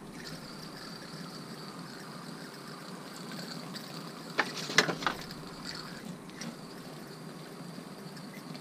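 Water spraying from a hose spray nozzle onto packaging peanuts in a plastic bin, a steady hiss, with a few sharp clicks about halfway through.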